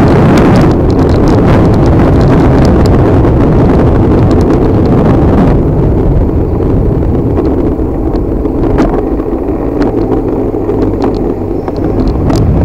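Wind rushing over the microphone while riding an electric scooter: a loud, steady rush with a few short clicks, easing slightly after about six seconds.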